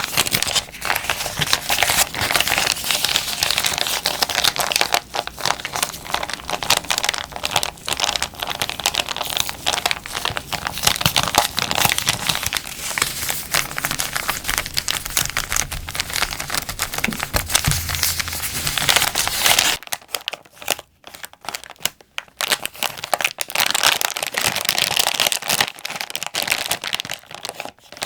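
Plastic packaging crinkled and squeezed by hands close to the microphone, a dense continuous crackling. About two-thirds of the way through it cuts abruptly to a different, sparser and thinner crinkling.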